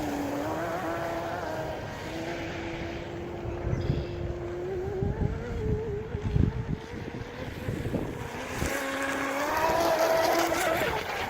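Pro Boat UL-19 RC outrigger's brushless electric motor whining steadily as the boat runs. Low rumbling noise covers the whine in the middle, and the whine comes back higher-pitched near the end.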